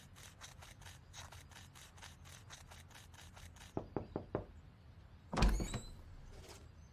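Quick, light cartoon footsteps, about five a second, then four sharp knocks on a wooden front door, followed about a second later by a heavy thud, the loudest sound.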